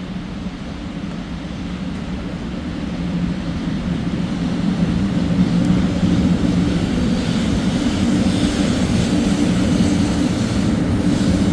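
Sanyo Shinkansen train running at the platform, a steady rumble that grows louder over the first few seconds and then holds, with a rushing hiss joining in after about seven seconds.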